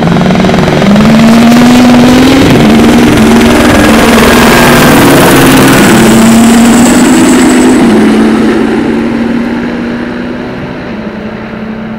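Škoda Fabia rally car's engine at high revs, accelerating hard with several quick pitch steps as it changes gear, then running flat out and fading as it draws away near the end.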